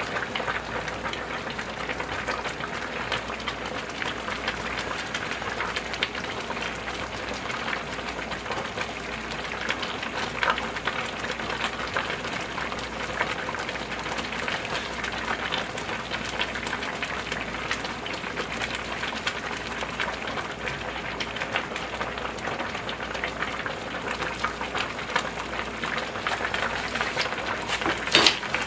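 Large stainless steel pots of pork-bone soup with dried radish greens boiling on the stove: a steady bubbling and crackling. A couple of sharp knocks near the end.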